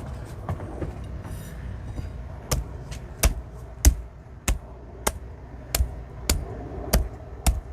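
A steady series of sharp knocks, about one and a half a second, starting a couple of seconds in: metal shelf tubes being beaten down into the plastic side connectors of a shoe rack to seat them.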